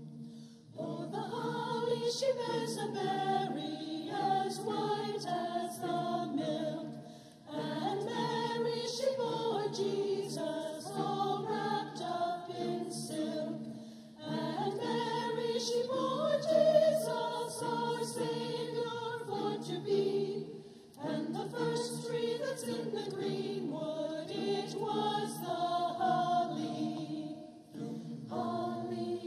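Church choir singing a Christmas carol in long phrases of about seven seconds, with short breaks for breath between them.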